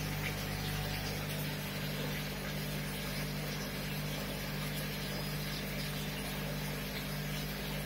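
Aquarium pump running: a steady low hum with an even hiss of bubbling water.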